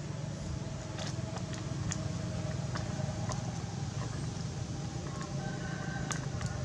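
Thin clear plastic cup clicking and crackling in irregular sharp ticks as a baby macaque handles it and knocks it about, over a steady low rumble.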